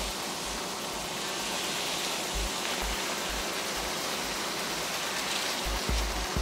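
Large plastic storage sheet dragged across gravelly ground, a steady rustling, scraping hiss, with a few dull low thuds.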